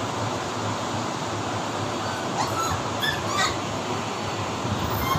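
Siberian husky puppies giving a few short, high yips and whines about halfway through, begging for food, over a steady background hiss and hum.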